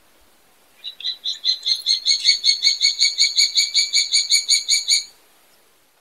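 Fiji goshawk calling: a rapid run of about two dozen evenly spaced, high-pitched notes, about six a second. The run starts about a second in, grows louder over its first second, and stops abruptly about five seconds in.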